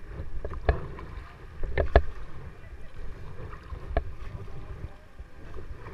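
Double-bladed paddle working an inflatable kayak through river water: paddle strokes with a few sharp clicks about a second, two seconds and four seconds in, over a low rumble.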